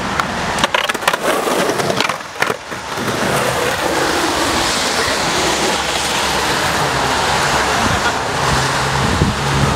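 Skateboard on wet asphalt: a few sharp knocks of the board in the first seconds, then the wheels rolling with a steady hiss. A low engine hum comes in near the end.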